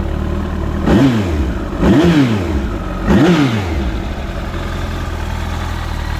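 Kawasaki ZZR1400's inline-four engine idling and blipped three times on the throttle. Each rev climbs quickly and falls back to idle, the three about a second apart, and then it settles to a steady idle.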